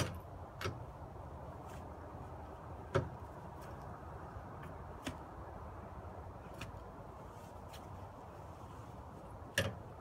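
A four-way cross lug wrench clinking on a wheel's lug nuts as they are tightened: a handful of short, sharp metal knocks a few seconds apart, over a steady low background noise.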